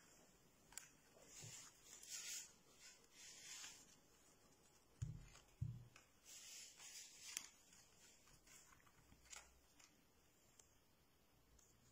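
Faint rustling of paper cut-out flaps being lifted and folded back on a paper anatomy model, with small clicks and two soft thumps about five seconds in.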